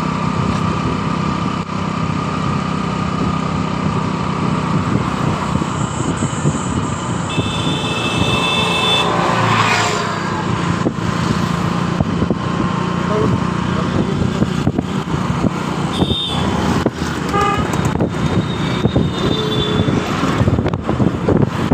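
Motorcycle running steadily along a road, engine hum mixed with wind and traffic noise. A vehicle horn honks for about a second and a half about a third of the way in, with shorter honks later.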